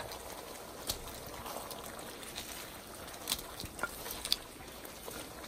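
Thickened cornflour gravy bubbling and sizzling steadily in a wok, with several light clicks and taps as deep-fried cauliflower florets are spooned into it with a metal spoon.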